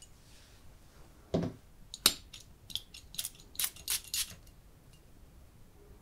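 Fingers handling and tapping a heavy glass perfume bottle with a metal atomizer. There is a dull knock about a second and a half in, then a sharp click, followed by a run of about six quick clicks and taps that ends a little after four seconds in.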